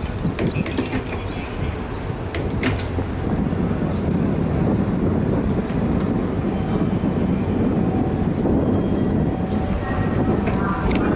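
Bicycle riding noise from a camera mounted on the bike: a steady low rush of wind on the microphone and road rumble, with sharp rattles and clicks in the first few seconds.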